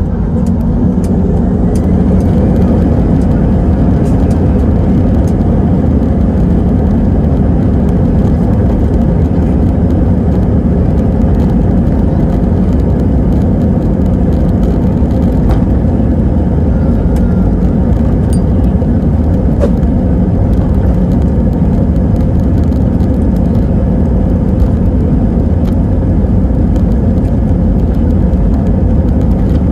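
Jet engines of an Airbus A320-family airliner heard from inside the cabin, running loud and steady as the plane moves along the runway, with a faint rising whine about two seconds in.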